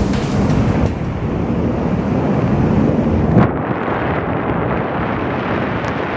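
Heavy wind buffeting the microphone of a camera carried on a tandem paraglider in flight, a steady rumbling roar with one brief louder surge about three and a half seconds in.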